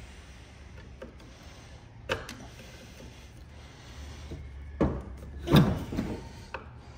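Tool and handling noises on a 1950s Sears and Roebuck gear-drive chainsaw: scattered clicks and scrapes of a screwdriver working at the starter housing screws, then a louder clunk and scrape a little after five seconds as the saw is tipped on the steel diamond-plate table.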